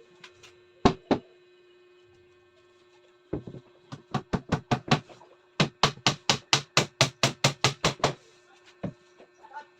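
Hammer blows on wood: two knocks, then a loose run of strikes, then a fast even run of about five blows a second, typical of driving a nail home.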